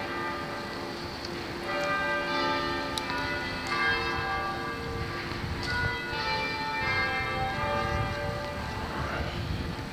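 Church bells ringing, many bells of different pitch sounding one after another and overlapping as they ring on. A low rumble sits underneath in the second half.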